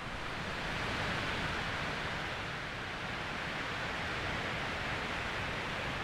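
Wind blowing through woodland trees, a steady hiss of moving branches and leaves.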